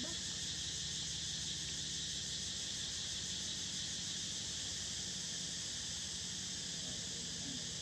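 Steady chorus of insects, an even high buzz that does not let up, with a low hum beneath it.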